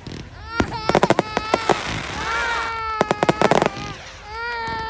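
Fireworks going off: clusters of sharp bangs and rapid crackling, with several long, high-pitched wavering tones sounding over them.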